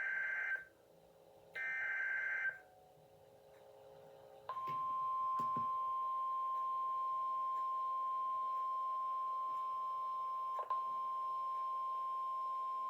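Two short bursts of EAS SAME header data, a rasping warble, about a second each. After a pause, the NOAA Weather Radio 1050 Hz warning alarm tone comes in as one steady tone and holds for about nine seconds before the flash flood warning is read.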